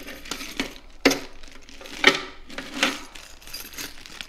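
Small hardware handled in and around a plastic enclosure: bagged metal pieces clinking and plastic parts clacking, with bag rustling. Three sharp clacks stand out, about one, two and three seconds in.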